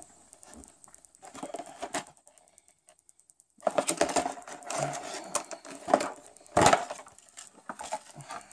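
Stiff clear plastic clamshell packaging being handled and pried open: irregular crackles and clicks, a short lull about two seconds in, then a run of crinkling with a louder snap of the plastic about six and a half seconds in.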